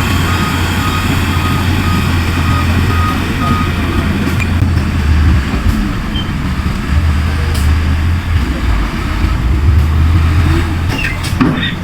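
Heavy diesel earthmoving machinery running under load, its deep engine note swelling and easing. A reversing alarm beeps about twice a second during the first two seconds, then stops.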